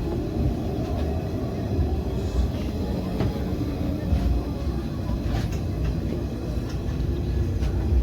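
MIG welder arc running: a steady low buzzing rumble with scattered sharp crackles.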